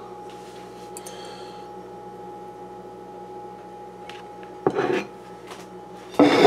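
A ceramic plate being handled and lifted off a kitchen counter: a few light clicks, a short scraping knock about five seconds in, then a louder rubbing scrape near the end. A steady hum sits underneath.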